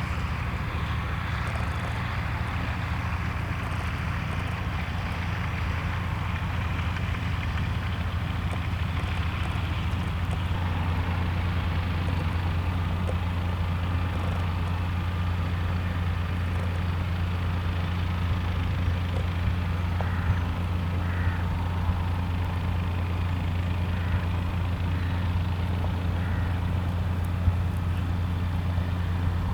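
A steady low engine drone that holds the same pitch and level throughout, with a few faint ticks after about 20 seconds.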